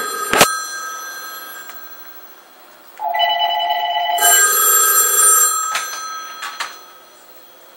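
Telephone ringing: the last ring fades out over the first couple of seconds, then a new ring of several steady tones starts about three seconds in and lasts about two and a half seconds. A sharp click comes about half a second in, and a few clicks near the end.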